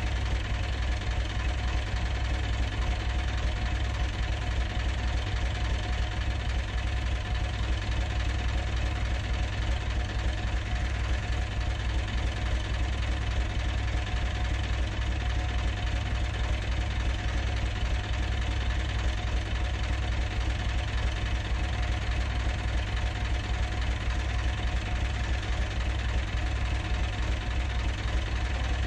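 Narrowboat diesel engine running steadily with an even, low-pitched chug.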